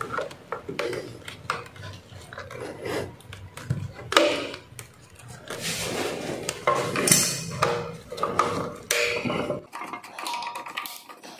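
Screwdriver working the terminal screw of a circuit breaker in an electrical panel as a wire is fastened: irregular metallic scrapes, clicks and rattles, dying away about ten seconds in.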